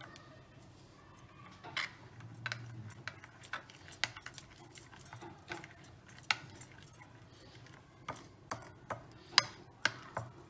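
A steel spoon stirring thick green chutney in a white ceramic bowl, clicking and scraping against the bowl in irregular sharp taps that start about two seconds in. Water is being mixed in to thin the chutney.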